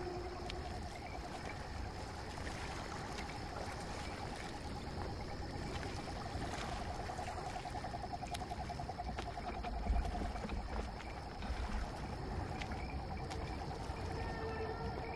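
Night chorus of insects and frogs: a steady high-pitched insect tone and a fast pulsing trill over a low rumble, with a dull thump about ten seconds in.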